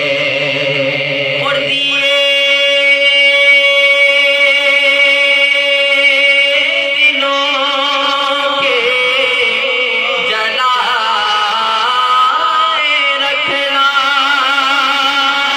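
Devotional naat singing: a voice holds a long note, then moves into wavering, ornamented melismatic runs over a steady sustained drone.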